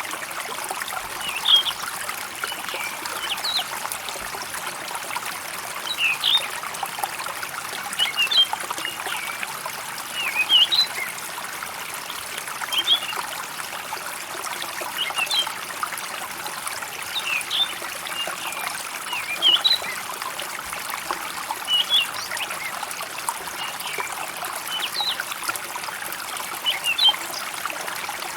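Water trickling and running steadily in a small stream, with a bird giving short chirps about every two seconds.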